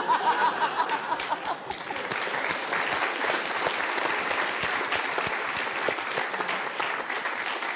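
Studio audience applauding steadily, with a burst of laughter in the first second or so.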